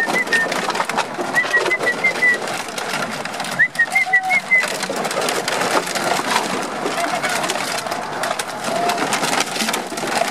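Empty plastic bottles crackling and crunching as Beauceron puppies walk and scramble over them. Three short runs of quick high chirps come through near the start, about a second and a half in, and about four seconds in.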